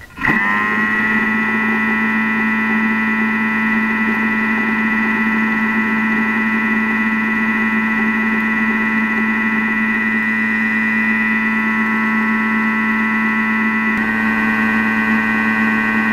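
Thermomix food processor's motor starting up and running at speed 4, turning the butterfly whisk through whipped marshmallow mixture; a steady whine that holds one pitch.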